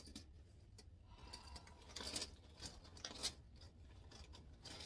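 Faint handling sounds of a mermaid tail being touched and shifted on carpet: a few soft rustles and light taps, about two and three seconds in, over a low hum.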